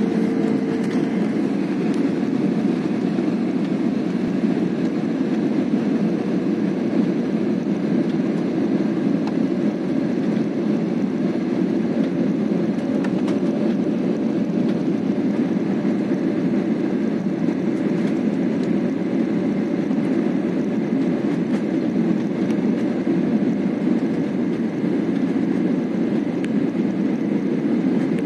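Steady cabin noise inside an Airbus A320-family airliner descending on approach: the even roar of the jet engines and airflow, unchanging throughout.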